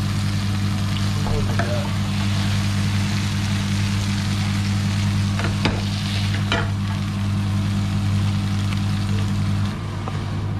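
Cheese-topped burger patties sizzling as they fry in a pan, with two sharp spatula clicks against the pan a little past halfway, over a steady low hum.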